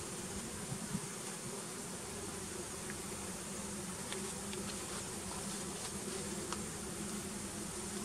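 Honey bees buzzing steadily around an open hive, a low even hum with a few faint clicks in the middle.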